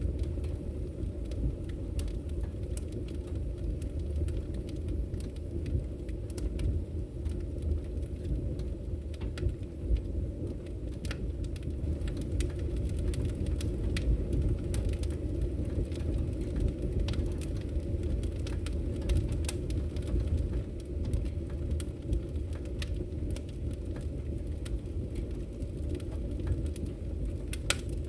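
Wood fire burning in a fireplace: a steady low rumble of flames with frequent irregular crackles and pops.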